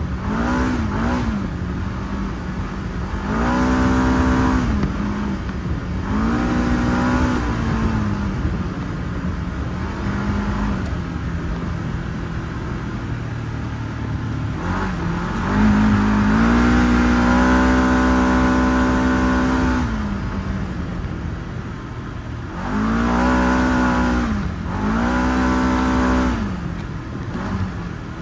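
Segway 1000 UTV engine revving up and easing off again and again as it is driven, about five surges, with one long high rev held for several seconds a little past the middle.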